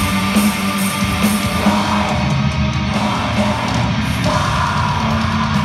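Black metal band playing live through a concert PA: dense, loud distorted guitars and drums without a break, heard from the audience.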